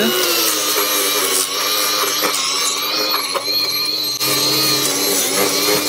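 Cordless angle grinder with a wire brush running steadily against painted brick and metal flashing, a constant motor whine over the scraping of the brush, as loose paint is stripped off in preparation for liquid flashing.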